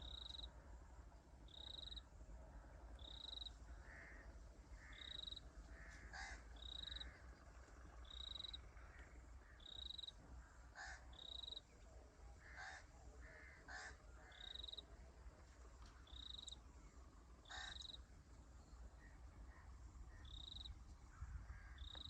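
Birds calling outdoors, faintly. One bird repeats a short high note about once a second, softer lower notes come in between, and a few harsh calls ring out in the middle, all over a steady low rumble.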